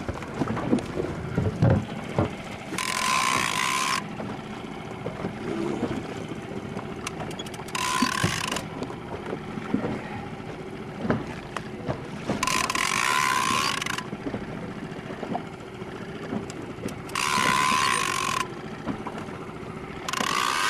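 Big-game fishing reel buzzing in short bursts of about a second, roughly every five seconds, as a large amberjack is fought on a bent rod. There are light clicks and knocks between the bursts.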